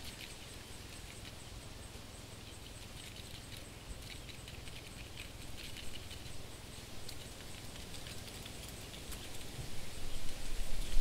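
Faint dry scratchy ticks and patter over a steady hiss: the skittering of a cockroach's legs. About a second before the end a low rumble begins to build.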